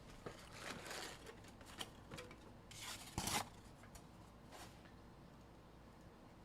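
Wrapping on a box of trading card packs being cut and torn open: a few scratchy ripping and rustling strokes, the loudest about three seconds in.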